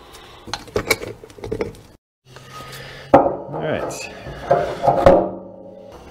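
Metal fuel tank cap parts clinking and tapping as they are handled, then, after a brief cut to silence about two seconds in, louder clanks and scraping as the cap is fitted onto the steel fuel tank's filler neck.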